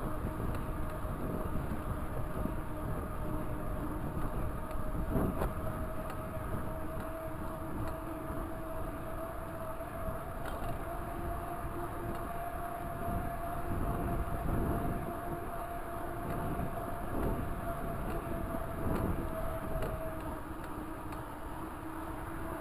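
Mountain bike, a Raleigh Talus 29er, rolling along an asphalt trail: steady wind and road rumble, with a whine that rises slightly in pitch and stops near the end.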